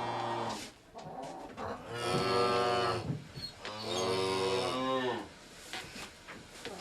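Cattle mooing: one call tails off at the start, then two drawn-out moos follow, each about a second long.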